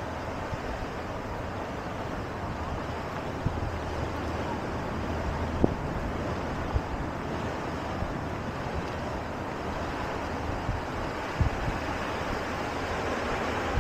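Steady rush of surf and wind, with wind buffeting the microphone and a couple of sharp knocks.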